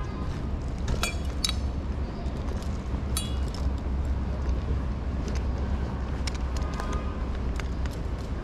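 Steady low rumble of city street traffic, with scattered light metallic clinks and jingles, several close together about a second in and another about three seconds in.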